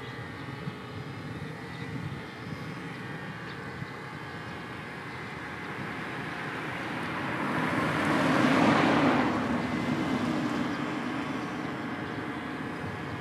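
Light aircraft's propeller engine on a landing approach. It grows louder as the plane passes low, is loudest about eight or nine seconds in, then fades as the plane reaches the runway.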